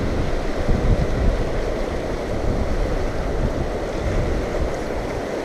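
Strong gusting wind buffeting the microphone, loudest about a second in, over the steady rush of river water.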